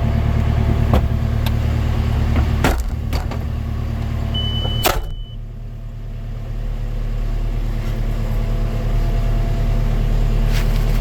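An engine running steadily, with a few sharp knocks and one loud clunk about halfway through; right after the clunk the sound drops, then builds back to a lower steady drone.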